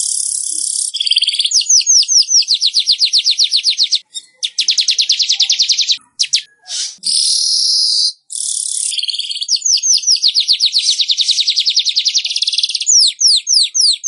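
Weaver bird (burung manyar) singing: long runs of fast, evenly repeated chattering notes, more than ten a second, broken by short wheezy, hissing phrases and a few brief pauses.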